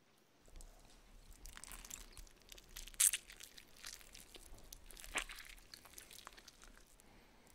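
Close-miked crunchy chewing: crisp food bitten and chewed with many small crackles, a sharp crunch about three seconds in and another about five seconds in.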